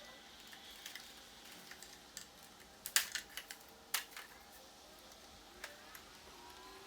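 Light plastic clicks and snaps, the loudest a cluster about three seconds in and another a second later: the plastic retaining clips of a Toyota Tacoma grille insert being pried loose so the insert comes out.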